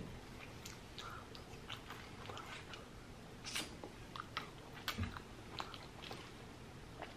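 Faint close-up chewing of a French fry: soft, moist mouth clicks scattered irregularly, a couple slightly louder about three and a half and five seconds in.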